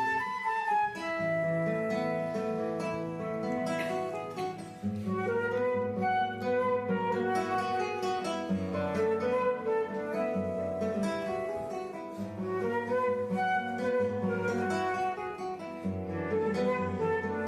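Live acoustic music: a guitar picking notes under a sustained, flute-like melody line, played steadily without singing.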